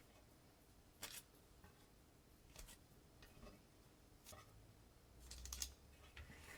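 Near silence, broken by a few faint clicks and scrapes, a slightly longer one near the end.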